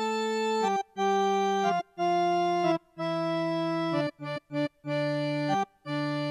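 Intro jingle played on an organ-like keyboard: a slow melody of held notes, about a second each with short breaks between them, stepping mostly downward, with a few shorter notes around the middle.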